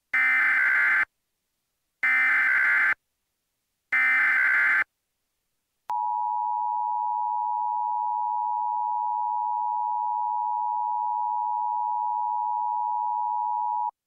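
Emergency Alert System SAME header: three one-second bursts of buzzy digital data tones about a second apart. Then the steady EAS attention signal, a two-tone 853/960 Hz hum, starts about six seconds in and holds for about eight seconds before cutting off abruptly. Together they announce a Local Area Emergency alert.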